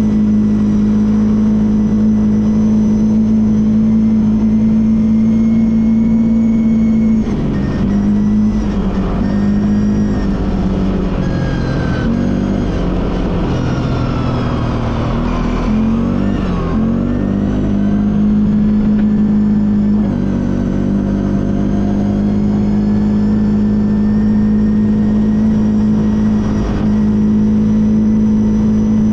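ATV engine running under way at a steady speed. About seven seconds in, the pitch drops, then rises and falls for some ten seconds as the throttle is eased off and opened again. After that it settles back to a steady pitch.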